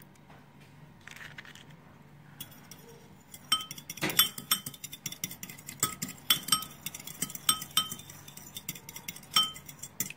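A metal fork beating eggs in a glass bowl, its tines clinking against the glass in quick, irregular strokes, a few times a second, each clink ringing briefly. The clinking starts about two seconds in.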